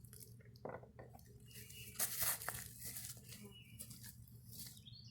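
Irregular rustling, crinkling and scraping, loudest about two seconds in, over a steady low hum.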